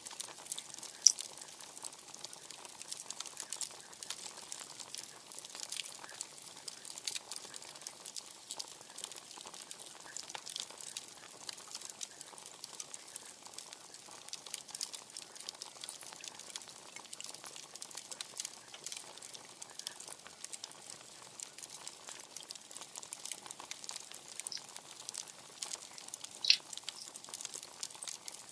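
Bonfire crackling steadily with a constant patter of small snaps, and two sharp louder pops, one about a second in and one near the end.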